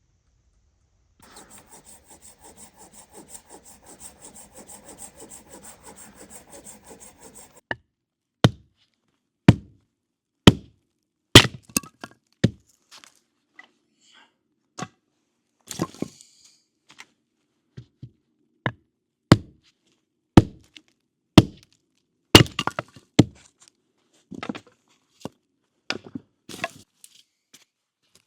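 Wood being sawn with a hand saw in quick, even strokes for about six seconds, then a series of sharp chopping blows on wood, roughly one a second and unevenly spaced.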